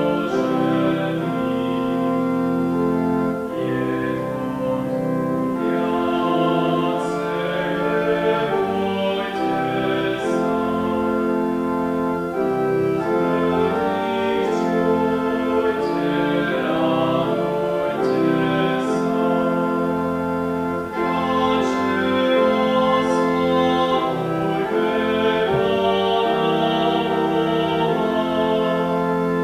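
Organ playing a hymn in held chords that change step by step, with voices singing the words along with it.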